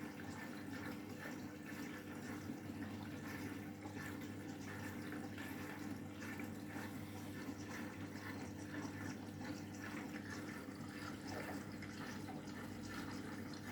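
Candy washing machine taking in water for the final-rinse prefill: a steady trickle and rush of water flowing through the dispenser drawer into the drum, washing the fabric conditioner in, with a steady low hum underneath.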